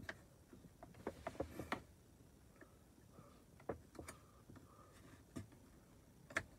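Small plastic clicks and taps as an air-freshener vent clip is pushed onto a car's air-vent slats and shifted into place: a quick run of clicks about a second in, then single sharp clicks every second or so.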